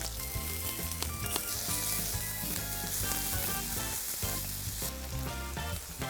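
Food sizzling as it fries in hot oil, a steady crackling hiss, over background music.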